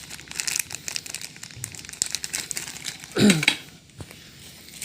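Plastic packaging crinkling as it is handled, a dense irregular crackle, with a short voice sound falling in pitch about three seconds in.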